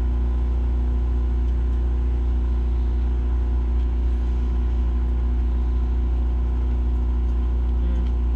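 Microwave oven running: a steady low electrical hum with no change in level.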